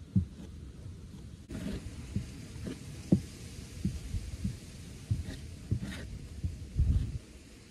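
Irregular dull thumps and knocks, one or two a second, as a brush dabs and pushes thick roof cement into the camper's wooden roof frame. A faint steady hiss joins about a second and a half in.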